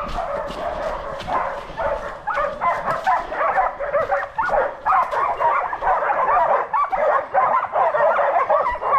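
A pack of hunting dogs yelping and baying, many voices overlapping, getting denser and louder from about two seconds in: hounds giving tongue during a wild boar chase.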